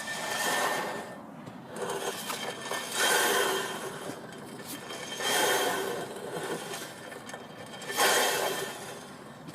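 Worn drum brake scraping in repeated surges, about every one to two and a half seconds, with a faint steady ringing note. The sound of worn-out drum brake shoes.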